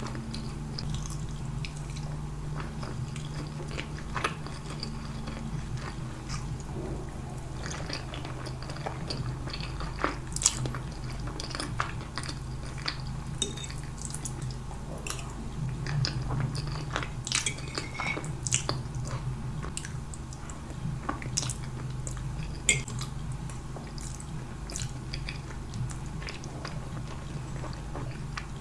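Close-miked ASMR eating sounds: wet chewing and mouth smacks while eating soft spaghetti in tomato sauce, with frequent sharp clicks and a few louder ones.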